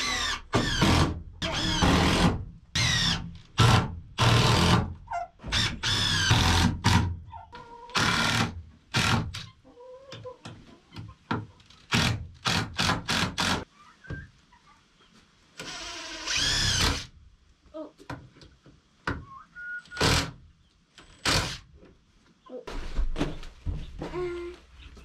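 Wooden boards knocking and thunking as they are handled and fitted together, with scattered loud knocks and a few quick runs of short hits.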